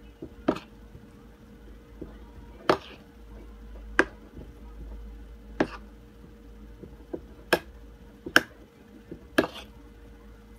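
Spoon clinking against a ceramic bowl while mixing mashed sardines and flour: about seven sharp clicks at uneven intervals, with soft scraping between them.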